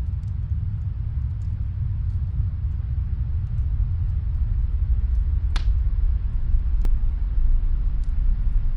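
Snowstorm wind blowing as a steady low rumble, with a few faint fireplace crackles and two sharper pops past the middle.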